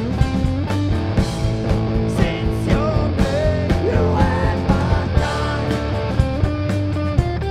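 Live rock band playing loud: a drum kit keeping a steady beat of regular hits under distorted electric guitar and bass guitar.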